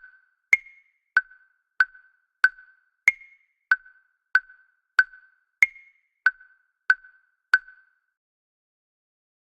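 Background music made of a metronome-like ticking, about one and a half ticks a second. Every fourth tick is higher in pitch, like an accented downbeat. The ticking stops about eight seconds in.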